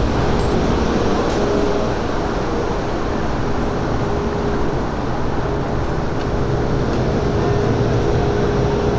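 Steady running noise of a Hanshin 5500-series electric commuter train, a constant rumble with a faint steady tone through it and a few light clicks.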